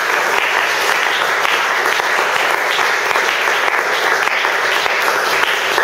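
Congregation applauding: a steady, dense round of clapping.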